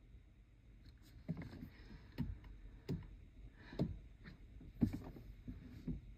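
Soft knocks and thumps, about six at irregular intervals of roughly a second, the strongest a little past the middle.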